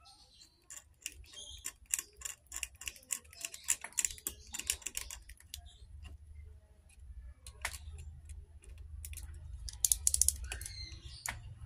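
Small hand tool scratching and clicking on a Polytron LED TV panel's printed circuit board, scraping the coating off a copper trace ahead of cutting it. Quick irregular scratches, densest in the first five seconds, then sparser, with a short burst of them around ten seconds in.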